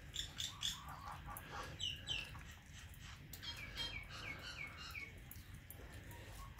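A bird calling: a few short, high chirps, then a quick run of falling notes about halfway through.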